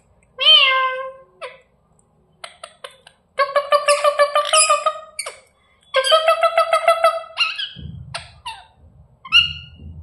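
Rose-ringed parakeets (Indian ringnecks) calling: a single drawn-out squawk near the start, then two long, rapidly pulsed screeching calls, followed by a few short calls near the end over a low rumble.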